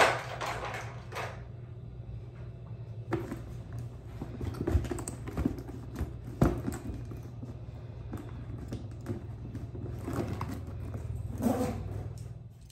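Scattered light clicks and knocks of small objects being handled, over a steady low hum, with a brief rustle in the first second.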